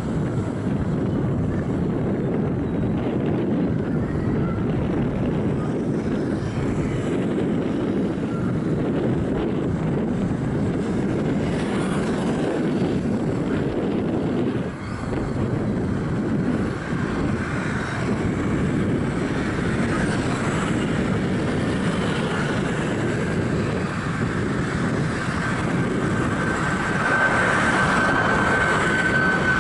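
The two CFM LEAP-1B turbofans of a Boeing 737 MAX 9 at takeoff thrust: a steady broad jet roar through the takeoff roll. Past the middle a high fan whine comes in, falling slightly in pitch and growing louder near the end as the jet climbs out overhead.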